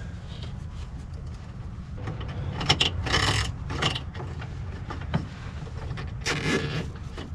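A plastic zip tie and headlight wiring being handled and fed around parts: several short plastic scrapes and rustles, the loudest about three seconds in and again near the end, over a low steady rumble.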